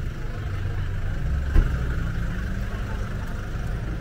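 Street traffic noise with a car engine running nearby, and a single sharp thump about a second and a half in.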